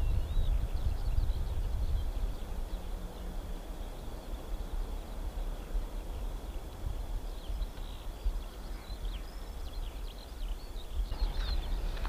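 Uneven low rumble of wind buffeting the microphone, with small birds chirping over it, more of them in the last few seconds.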